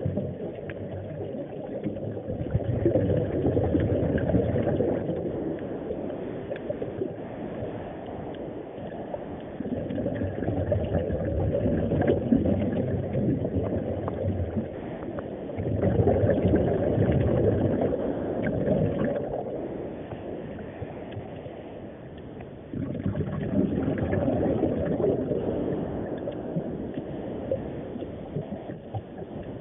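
Muffled rush of water, heard underwater, swelling and easing every five to seven seconds.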